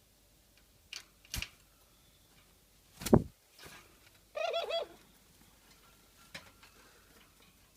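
A dove gives one short wavering, trilling call about halfway through, after a couple of light knocks and a loud sharp thump.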